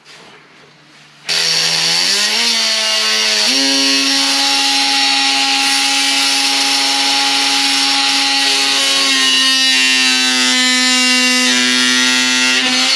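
Electric power saw cutting wooden baseboard. The motor starts about a second in with a rising whine, runs at a steady pitch through the cut, and winds down at the end.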